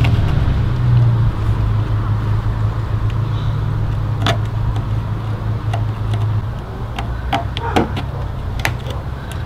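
A steady low motor hum, with a few light clicks and scratches from a utility knife slitting a carpeted trunk liner.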